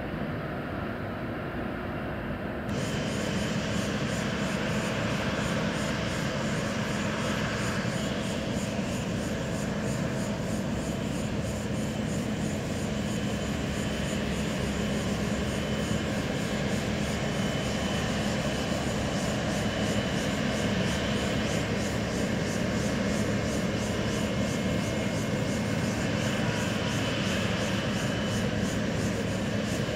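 Jet airliner engine noise, briefly from a Boeing 747-8 on the runway, then, after an abrupt step up about three seconds in, a steady run of engine noise with a faint whine from a Boeing 777-300ER on final approach and landing.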